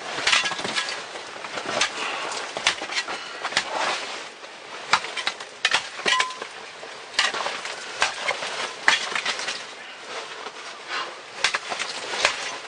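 Irregular crunching and clinking of broken ice chips and loose scree under a caver's knees, boots and gear as he shifts and crawls over them, many small sharp knocks with no steady rhythm.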